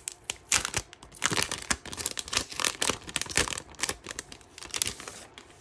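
Clear plastic cello sleeve crinkling as it is opened and a sticker sheet is slid out of it: a dense run of sharp crackles that dies down near the end.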